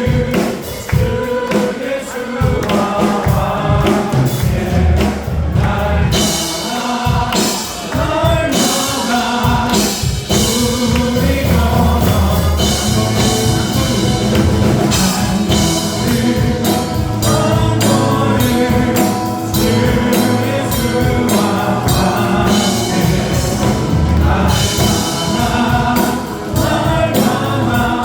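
Contemporary Christian worship song sung by a group of singers with a full band. Cymbals and drums fill out the sound from about six seconds in.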